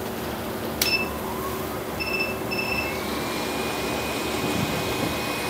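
Hot air rework station being started: a click with a short beep, then two short electronic beeps about half a second apart, then the hot air gun's blower spins up with a faint whine rising to a steady pitch over a steady rush of air.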